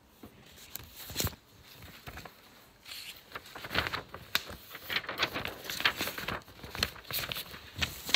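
Irregular rustling and crinkling with light taps and clicks, like paper or objects being handled.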